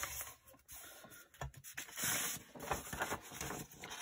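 Sheets of textured scrapbook paper being handled and slid against each other: irregular rustling and sliding, loudest about two seconds in.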